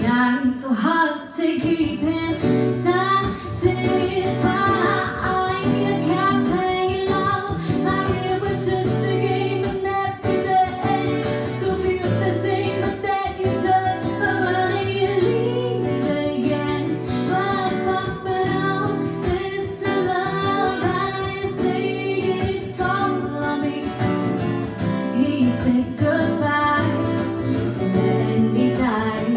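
A song playing: a woman singing over guitar accompaniment.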